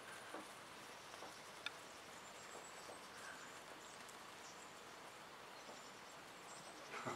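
Near silence, with a few faint, distant sounds from Great Pyrenees puppies at play and a sharper faint click about a second and a half in.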